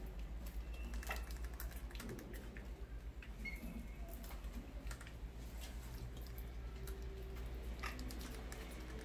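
Mice scrabbling about on the bottom of a plastic bucket, their claws making light, irregular clicking and scratching, with a few brief high chirps. A steady low hum runs underneath.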